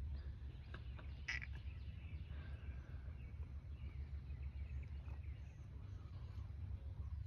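Outdoor background of a low, steady rumble like wind on the microphone, with a few faint bird chirps, the clearest about a second in.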